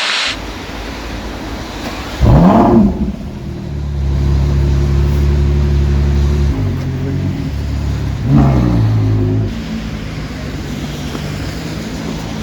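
Ferrari Daytona SP3's 6.5-litre V12 firing up with a loud flare of revs about two seconds in, settling into a steady fast idle, then a second short rev blip about eight seconds in before dropping to a lower idle.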